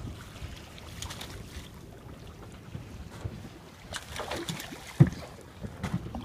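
Wind buffeting the microphone and water moving against a small boat, with scattered clatter and one sharp knock about five seconds in.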